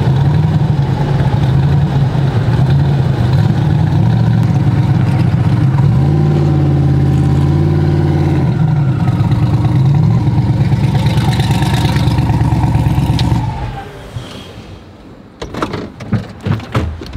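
Pickup truck engine heard from inside the cab while driving, running without boost (no CO2 for the boost). The engine pitch rises and falls about six to eight seconds in. The engine sound drops away about 13 seconds in, followed by several sharp clicks and knocks.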